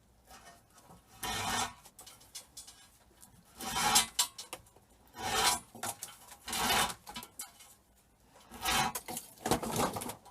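Extension flex cable being stripped by hand: the outer sheath scrapes in about six separate strokes as the cable is pulled through the stripper, one every second or two.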